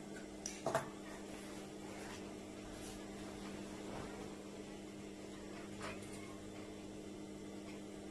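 Steady low electric hum, with a quick cluster of sharp snips from large tailor's shears trimming fabric and thread about half a second in, and a fainter click near six seconds. No stitching is heard.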